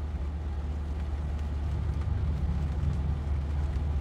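Steady low hum of a car's engine idling, heard from inside the cabin, growing slightly louder about halfway through.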